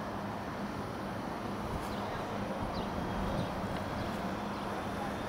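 The Boeing 727-200 freighter's three Pratt & Whitney JT8D jet engines are heard from a distance during touchdown and rollout, a steady rumble with no rise or fall. A few faint high chirps sound over it in the middle.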